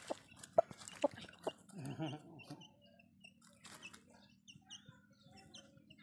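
A rooster pecking at the ground: a few sharp taps in the first second and a half, then a short low clucking call about two seconds in, followed by faint scattered ticks.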